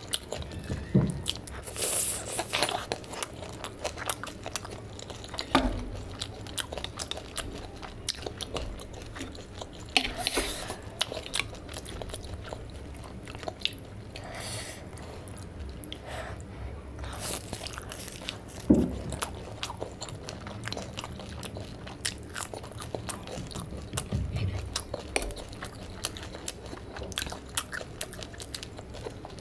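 Close-miked eating sounds: repeated crunchy bites and chewing of deep-fried bread pakora, with many short, sharp crunches.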